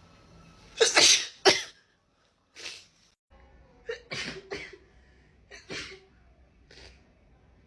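A woman sneezing over and over in a sneezing fit: a loud cluster of two or three sneezes about a second in, then softer sneezes every second or so.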